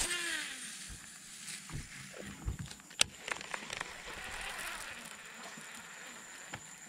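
Baitcasting reel during a cast and retrieve: a short whir falling in pitch at the start as the spool spins down, a sharp click about three seconds in, then the soft whir of the reel being cranked.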